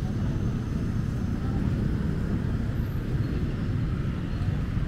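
Steady low rumble of outdoor street ambience, with no distinct events standing out.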